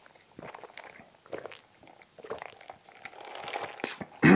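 Close-up sipping of iced sparkling apple-grape juice through a straw: soft slurps, swallowing gulps and small mouth clicks, then a loud breathy exhale with voice in it at the very end.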